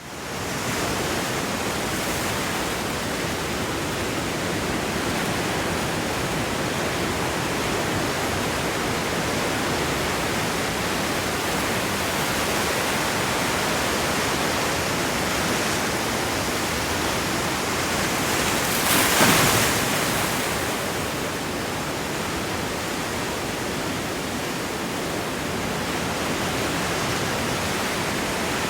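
Sea waves washing against a rocky shore: a steady rushing surf, with one louder wave crash about two-thirds of the way through.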